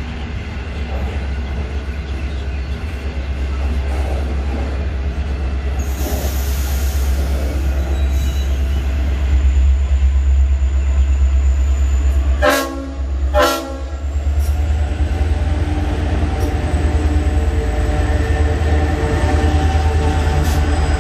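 Freight train of hopper wagons rolling past with a steady low rumble and a faint high wheel squeal. Past the middle, a train horn sounds two short blasts about a second apart, the loudest sound, and a few sharp wheel clicks over the rail joints come near the end.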